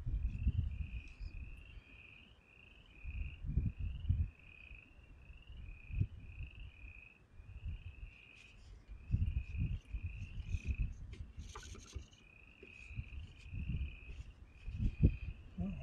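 A chorus of frogs calling, a steady run of short rising chirps repeated two or three times a second, over low rumbling gusts on the microphone.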